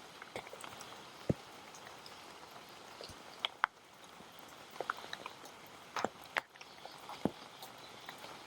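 Light rain falling steadily, with about ten single drops landing close by at irregular moments.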